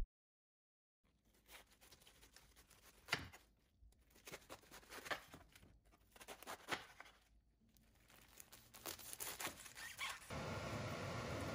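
Faint, scattered crisp knife cuts on a wooden cutting board: a chef's knife slicing through a head of napa cabbage, then through a plastic-wrapped pack of enoki mushrooms. A steady background noise comes in near the end.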